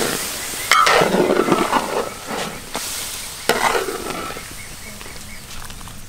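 A large wok of pork ribs and eggs simmering in broth while a metal ladle stirs it. There are two louder scrapes of the ladle, about a second in and again about three and a half seconds in.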